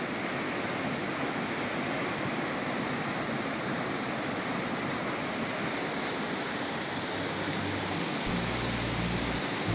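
Mountain stream rushing over rocks and a small cascade, a steady, fairly loud sound of running water. Background music with low notes comes in near the end.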